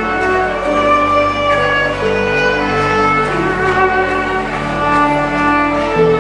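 Slow background worship music of sustained string-like chords, held notes shifting every second or so.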